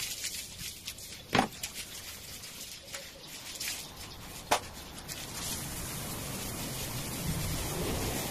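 Two sharp knocks, then, from about five seconds in, the steady hiss of water spraying from a garden hose onto a tiled floor.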